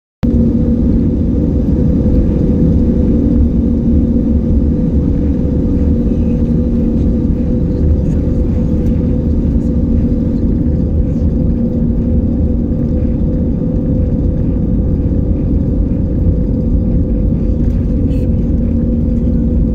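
Airliner cabin noise with the plane on the ground: a steady low rumble with an even engine hum, heard from inside the cabin.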